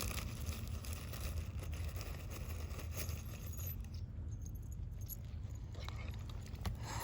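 Low steady rumble of wind on the microphone, with faint scattered light clicks and scrapes, thinning out after about four seconds.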